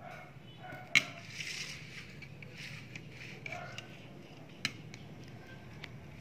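Faint background voices over room noise, with two sharp clicks: a loud one about a second in and a softer one a few seconds later.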